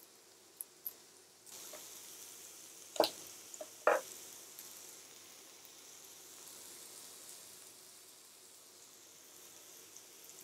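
Chopped onions frying in coconut fat in a wok, a faint steady sizzle that starts about a second and a half in. Two short knocks sound about three and four seconds in.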